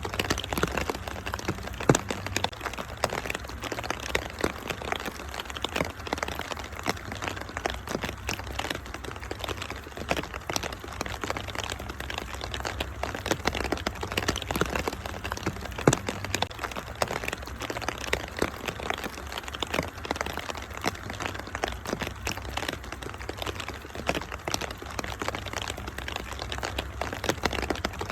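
Wood fire in a fireplace crackling with dense, irregular snaps, over a steady hiss of rain. A couple of louder pops come about two seconds in and again about sixteen seconds in.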